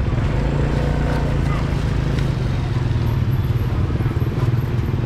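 Street ambience: a steady low engine hum with people talking in the background.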